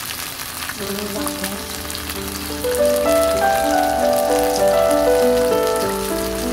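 A fish steak sizzling in hot oil in a wok, a steady crackling hiss. Background music comes in about a second in and grows louder partway through.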